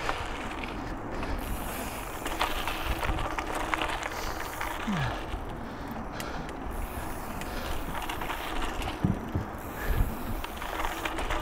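Mountain bike riding on dirt singletrack: the tyres roll over the trail with scattered clicks and rattles, and the rear hub's freewheel ratchets while the rider coasts.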